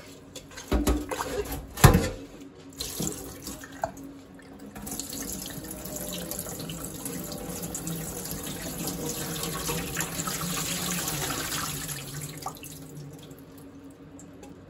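Rinse water in a stainless steel pot in a kitchen sink: a few knocks of the pot and broccoli, the loudest about two seconds in, then a steady pour of water tipped from the pot into the sink, fading out near the end.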